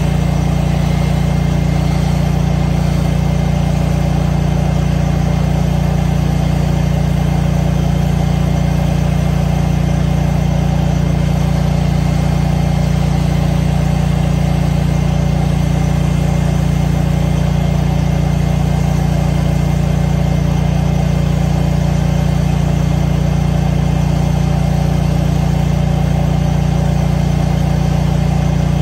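Engine of a gas-powered pressure washer running steadily at a constant speed, with the hiss of the high-pressure water spray rinsing concrete.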